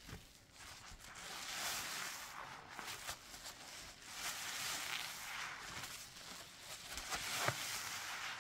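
A soapy sponge squeezed and worked in thick lather of Fabuloso and dish soap: wet squishing and crackling of suds that swells and fades, with a sharper click about seven and a half seconds in.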